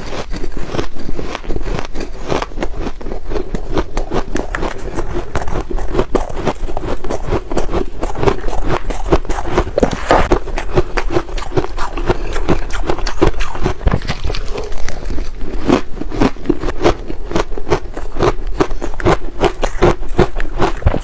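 Ice being bitten and chewed close to the microphone: a dense, continuous run of sharp crunches and crackles, several a second.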